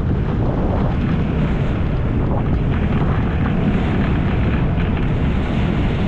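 Wind buffeting the microphone: a loud, steady rushing noise, heaviest in the low end.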